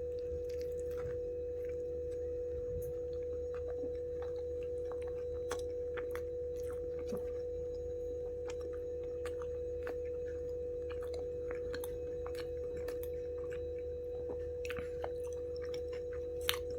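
Close-miked chewing of a bite of aloo tikki cheese burger: many small, soft mouth clicks and crunches, with a sharper click near the end, over a steady hum.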